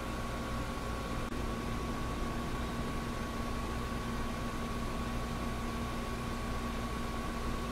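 Steady background hum and hiss, with a constant low tone and a constant higher tone; a faint tick about a second in.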